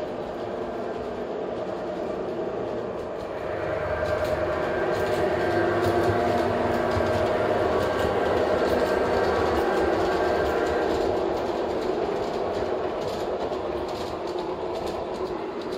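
G-scale model freight train with an MTH diesel locomotive running on floor track: a steady motor hum with light clicking of the wheels over the rail joints. It swells about four seconds in and eases off near the end.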